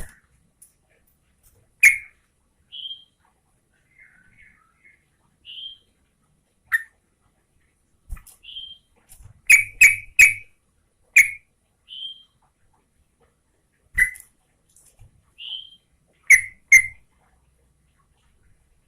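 Yellow-vented bulbul (trucukan) giving short, separate sharp call notes with gaps between, some in quick pairs or a rapid run of three or four, mixed with softer whistled notes.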